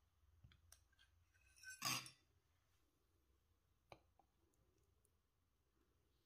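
Kitchen utensils and dishware clinking lightly: a few faint clicks, one louder clatter about two seconds in, and a single sharp click near four seconds, otherwise near silence.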